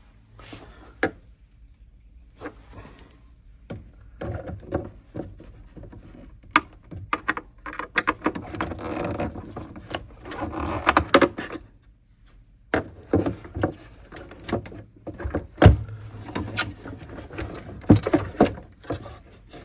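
Clicks, knocks and scraping from hand work on an old tube radio: screws being taken out and parts of the chassis and wooden cabinet handled as the set is taken apart.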